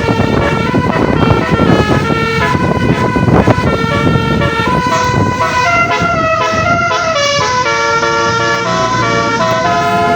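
A bus's telolet horn, a set of multi-tone air horns sounding a quick tune, its notes changing several times a second.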